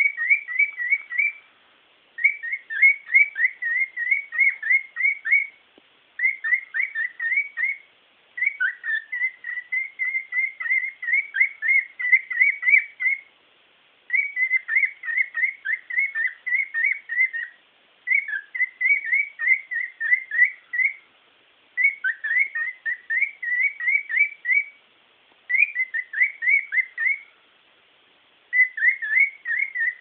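Cockatiel singing: phrases of quick, repeated whistled notes, each phrase lasting a few seconds, with short pauses between them.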